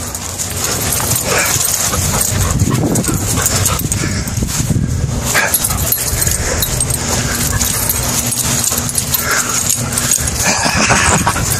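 McNab dog making several short, excited whining calls in play, over constant rumble and rustle from a handheld camera being swung about.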